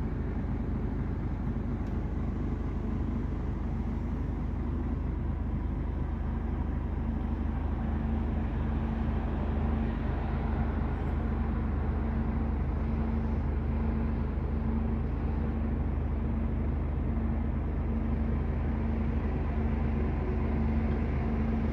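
Scania R 450's 13-litre straight-six diesel engine idling steadily, heard from inside the cab as a low, even hum.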